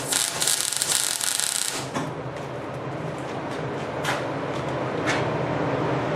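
Welding arc crackling and hissing for about two seconds as a tack weld is laid on steel pipe. It then gives way to a steady low hum with a few sharp clicks.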